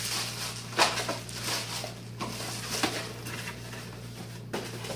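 A clear plastic bag crinkling and cardboard boxes being handled: short irregular rustles with a sharper crackle about a second in, over a steady low hum.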